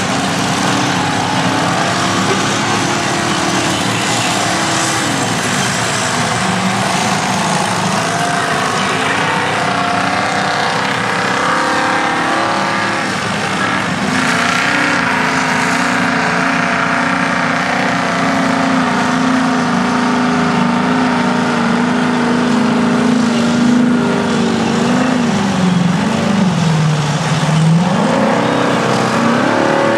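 Engines of heavy earthmoving machines (vintage bulldozers and scrapers) running together with a steady, loud engine note. Near the end the engine's pitch drops and then climbs back.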